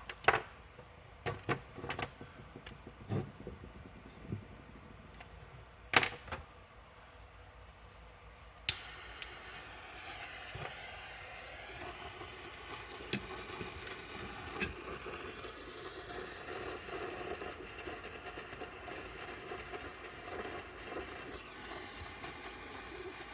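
Sharp clicks and taps of small metal tools being handled, then about nine seconds in a steady hiss starts suddenly and runs on: a gas torch burning, heating the circuit board to reflow the regulator's solder.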